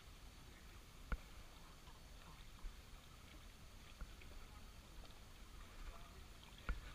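Quiet background hiss with a few sharp clicks, the loudest about a second in and another near the end.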